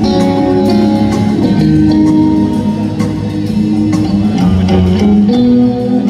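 Rock band playing live: electric guitars over double bass and drums, with the guitars leading.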